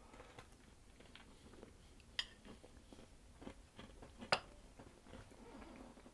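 Faint chewing of a bite of soft, gooey-centred pastry tart, broken by two sharp clicks about two seconds apart.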